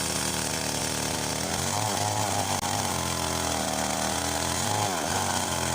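Husqvarna two-stroke chainsaw running while cutting branches, its engine note dipping and recovering several times.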